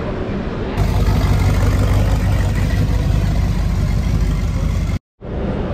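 Vehicle engine running steadily, louder and fuller from about a second in, with a brief cut to silence near the end.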